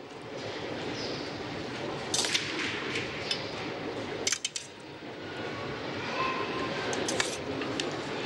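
Metal tongs clinking against a stainless steel mixing bowl as a noodle salad is tossed and served, several sharp clinks over a steady background noise.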